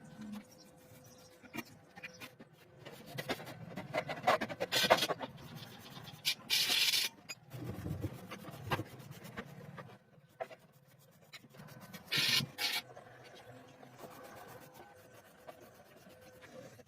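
Irregular rubbing and scraping with scattered clicks and knocks, in uneven bursts; the loudest come about a third of the way in and again about three quarters of the way in.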